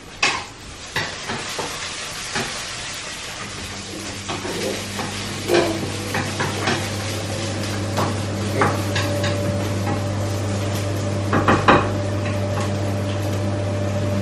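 Light knocks and clatter of household objects being handled, then a steady electrical hum starts a few seconds in and keeps going, like an appliance or small motor switched on.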